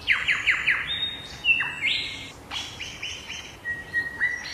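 Songbirds chirping and singing, several different calls overlapping: a quick run of falling chirps at the start, then high whistles and short repeated notes.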